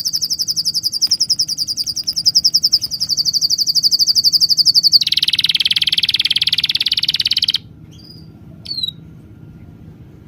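A loud, high, rapidly pulsing animal trill that shifts to a lower, buzzier trill about five seconds in and cuts off abruptly at about seven and a half seconds, followed by two short falling chirps.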